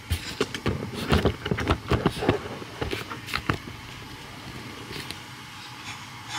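A run of irregular knocks and clatter as a skillet is handled and set on a gas stove's burner grate, lasting about three and a half seconds. A steady rushing background follows.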